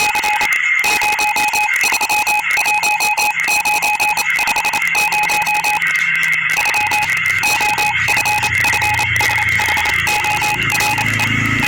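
Morse code sent as a beeping tone, keyed on and off in rapid short and long pulses, with crackling clicks throughout. The beeping fades out near the end as a low hum grows underneath.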